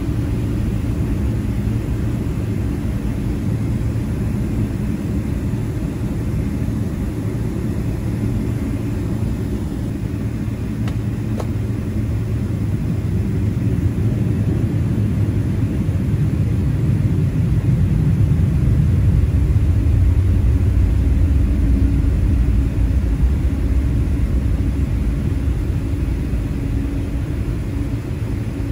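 Boeing 777-300ER taxiing, heard from inside the cabin: a steady low rumble from its GE90-115B turbofans at taxi thrust and the wheels rolling on the taxiway. It grows somewhat louder past the middle and eases near the end.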